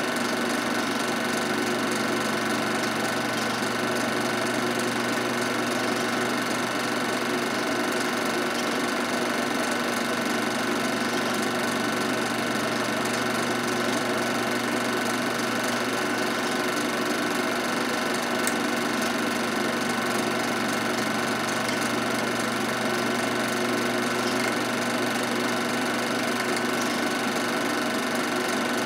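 Film projector running steadily, its motor and film-advance mechanism making an even, unbroken mechanical hum.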